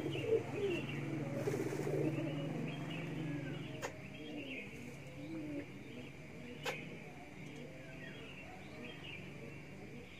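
Domestic pigeons cooing, a low rolling coo strongest in the first three seconds and fainter after, over repeated short high chirps. Two sharp clicks come about four and about seven seconds in.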